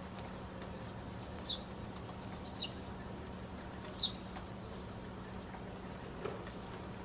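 A low steady hum, with three short, high, bird-like chirps that dip slightly in pitch, spaced a second or so apart in the first half.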